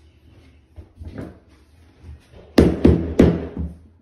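Knocks of a vinyl click-lock floor plank being knocked into place along the wall: a softer knock about a second in, then four sharp knocks in quick succession past the middle.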